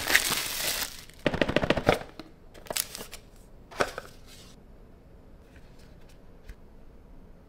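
Plastic shrink wrap crinkling and tearing as it is peeled off a smartphone box, with a fast run of crackles in the first two seconds. Then a few shorter rustles of packaging as the box is opened, and faint light taps near the end.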